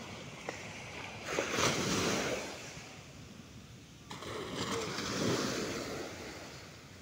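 Small surf breaking and washing up a sandy beach in two surges, one starting about a second in and another about four seconds in, each fading as the wash spreads over the sand.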